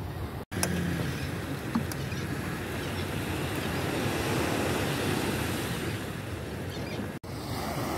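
Small waves breaking and washing on a sandy beach, with wind buffeting the microphone. The sound cuts out briefly twice.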